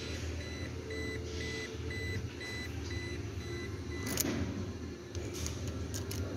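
Toyota Hilux key-in-ignition reminder buzzer beeping at a steady pace of about two short high beeps a second. It is working again with the door switch connector plugged in. A click comes about four seconds in.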